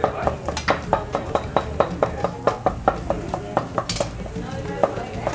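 Steel cleaver chopping grilled carne asada on a thick wooden chopping block: a rapid, steady run of sharp chops, about four or five a second, each with a short metallic ring.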